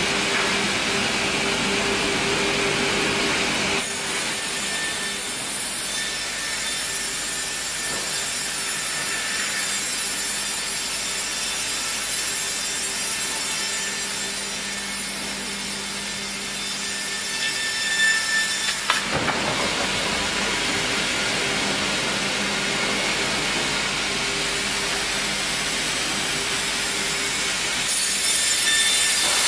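Industrial sawmill band saws cutting a squared log fed on rollers: a continuous hiss of blades in wood over a steady motor hum. A few sharp knocks come about two-thirds of the way through, and the sawing grows louder near the end.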